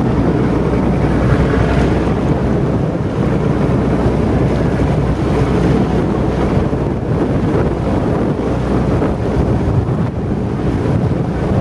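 Wind buffeting the microphone on a boat underway, over the steady low rumble of the boat moving through the water.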